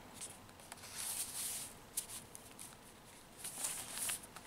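Soft rustling and sliding of paper and card as a handmade paper journal's tags and pages are handled and turned, in two short stretches with a few light ticks.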